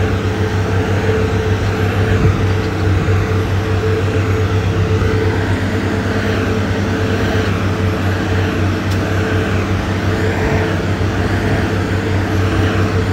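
Diesel engine of heavy road-building machinery running steadily, a constant low drone with a steady hum.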